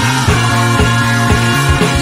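Background music with a steady beat and a held bass line.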